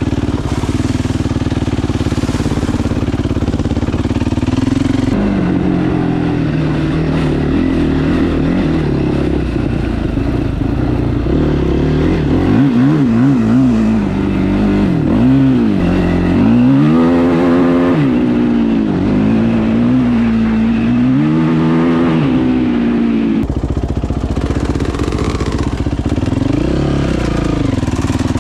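Yamaha YFZ450 sport quad's engine ridden hard, revving up and dropping off again and again as the throttle is worked, with the sound changing abruptly a couple of times.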